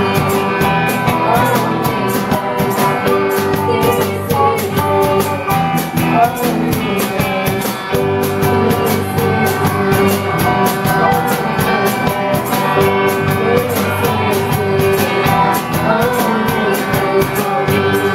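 School rock band playing live: singing over guitar and drums with a steady beat.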